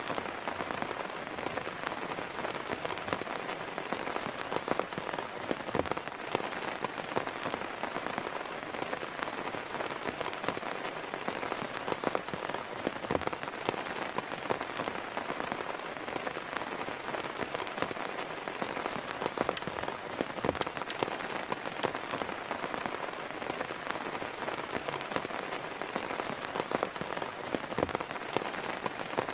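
Heavy rain falling steadily, with many separate drop hits close by.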